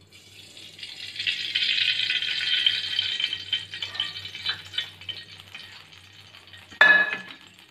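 Cooking oil poured into a metal kadhai on the stove, a steady hiss that swells over the first couple of seconds and fades as the pour ends. Near the end comes one sharp knock, the loudest sound.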